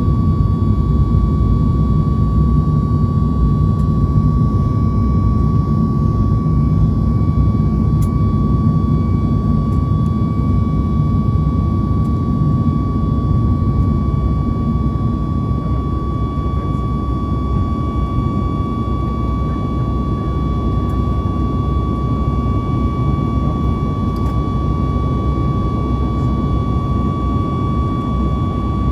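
Boeing 737 MAX 8 jet airliner heard from inside the cabin: a steady, loud rumble of engines and airflow with a constant high whine over it.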